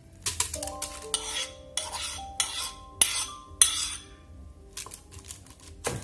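A metal fork scraping and clinking against a bowl and a rice cooker's inner pot as chopped bread mixture is scraped out into the pot, in quick irregular strokes for the first few seconds, with a few softer scrapes near the end.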